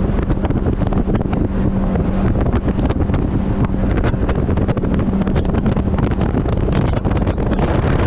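Mercury 80 Jet outboard running steadily as the boat is under way, with a held engine tone. Heavy wind buffets the microphone.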